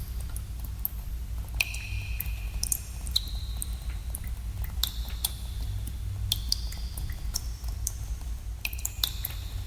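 Water drops falling irregularly in a cave, about a dozen short ringing plinks at different pitches, over a steady low rumble.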